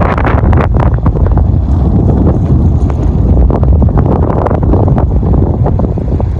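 Strong wind buffeting the microphone in a blizzard: a loud, steady low rumble with frequent sharp crackles.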